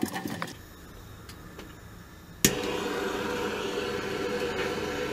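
Handheld gas torch on a yellow MAP-gas cylinder lighting with a sharp click about two and a half seconds in, then burning steadily at the copper water-heater piping, heating it for soldering.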